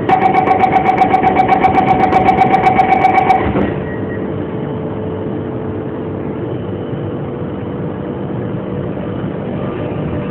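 Alstom Metropolis C751A metro car's door-closing warning: a rapid pulsing beep, about eight pulses a second, for about three and a half seconds. It then stops, leaving the steady hum of the car's onboard equipment.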